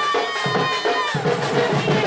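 Traditional tribal dance music: a high melody in long, slightly gliding held notes over repeated drum beats, with crowd noise underneath.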